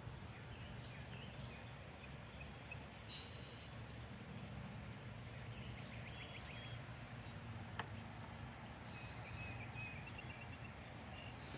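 Faint songbird chirps over a steady low background hum: three short high chirps about two seconds in, then a quick run of higher twittering notes, then scattered faint calls. A single faint click comes about eight seconds in.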